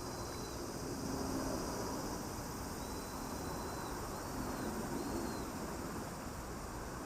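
Steady outdoor background hiss with a few faint, short high-pitched chirping notes, one at the start and three more around the middle.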